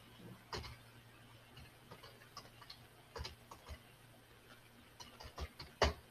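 Computer keyboard keys clicking as a short line of text is typed: irregular, faint keystrokes, bunching together in the last second, with the loudest one near the end.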